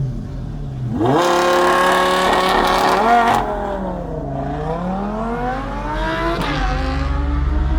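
Ferrari 458's flat-plane V8 through an aftermarket Secret Weapon exhaust, heard onboard and very loud. The engine revs up sharply about a second in and holds high, drops back, climbs again, then settles to a lower steady note near the end.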